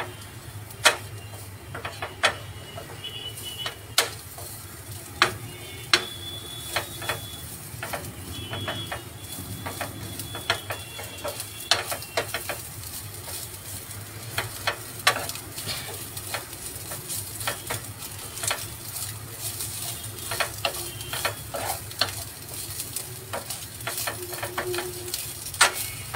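Boiled, shredded chicken sautéing in butter in a metal pan, with a steady sizzle, while a wooden spatula stirs it, knocking and scraping against the pan at irregular moments.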